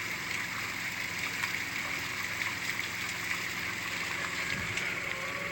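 Steady flowing water, like a stream or inflow running into a fish pond, with a constant hiss and no distinct events.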